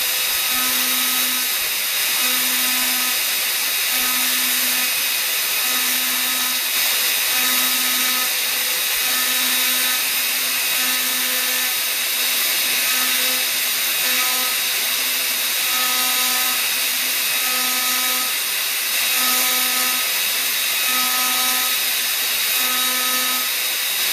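T8 Mini CNC engraving copper-clad PCB with a 0.1 mm, 20-degree engraving bit: the spindle runs steadily with a high whine. Over it the stepper motors hum in short regular pulses, about one every second and a half, as the head moves.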